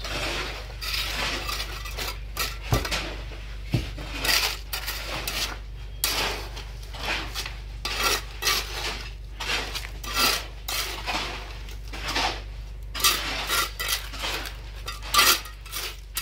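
Steel mason's trowel scraping and patting wet concrete in wooden stair formwork, over and over in short strokes, roughly one or two a second, as the step is levelled and smoothed.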